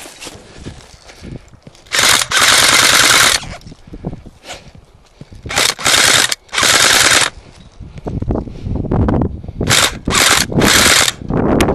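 Airsoft guns firing full-auto bursts as a fast, rattling stream of shots. One long burst comes about two seconds in, then three short bursts around the middle and three more near the end.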